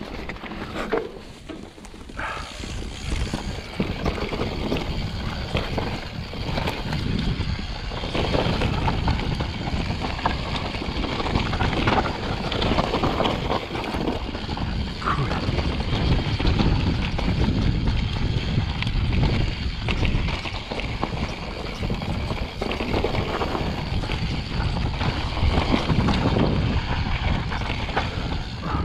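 Enduro mountain bike riding down a rough trail: tyres rolling over dirt and rocks and the bike rattling and knocking over bumps, with wind noise on the microphone. It gets louder about three seconds in and stays busy after that.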